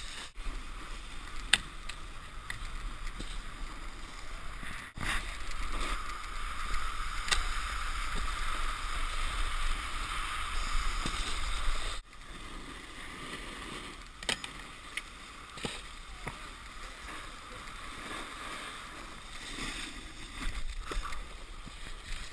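Snowboards sliding and carving over packed snow: a steady scraping hiss with a few sharp knocks.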